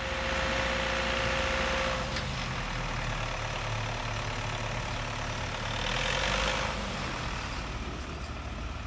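Diesel engine of a heavy earth-moving machine running steadily with a low hum. A steady higher whine sits over it for the first two seconds.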